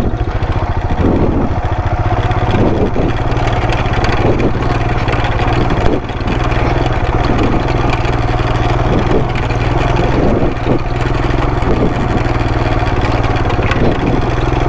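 Royal Enfield Himalayan's single-cylinder engine running steadily at low speed as the motorcycle rides over a rough, rutted dirt track, with occasional knocks from the bumpy ground and a brief dip in engine sound about six seconds in.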